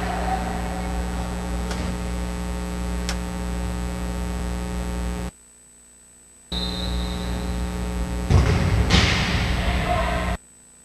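Steady electrical mains hum, a low buzz that cuts out abruptly twice for about a second, once midway and once near the end. Just after the first dropout comes a short high tone, and about two seconds later a loud rush of noise.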